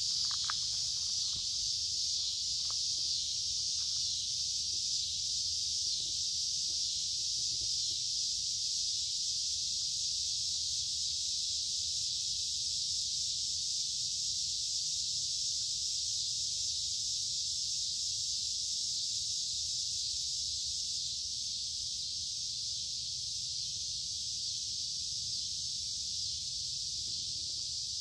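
A chorus of cicadas buzzing in one steady, high-pitched drone, fading slightly near the end.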